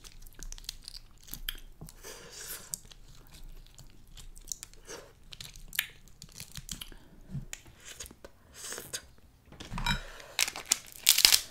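Close-miked chewing of snow crab meat, with small sharp clicks from the shell. Near the end there is a louder stretch of crackling as the shells of a cluster of snow crab legs are handled and broken.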